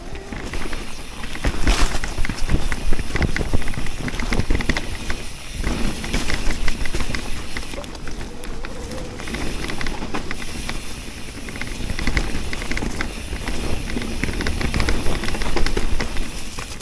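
Electric mountain bike riding over a leaf-covered dirt trail: tyres rolling over leaves and dirt, with rapid rattling and clicking from the bike over bumps and a low rumble of wind on a chest-mounted camera's microphone.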